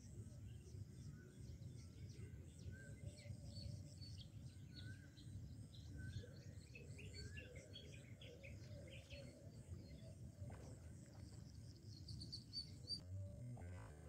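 Birds chirping in short, repeated calls over a steady low outdoor rumble. The ambient sound cuts off abruptly near the end.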